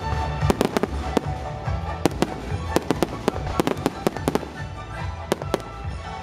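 Aerial fireworks bursting overhead in a rapid, irregular string of sharp bangs, several a second, with music playing underneath.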